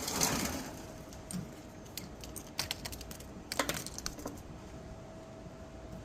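Irregular light clicks and taps, with a short rustle at the start and a quick cluster of clicks about three and a half seconds in, over a faint steady hum.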